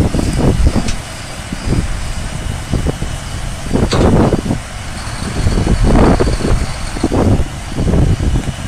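Case IH Quadtrac 470's 12.9-litre diesel engine running as the tracked tractor moves slowly, a deep rumble that swells in loudness several times, most strongly about four and six seconds in.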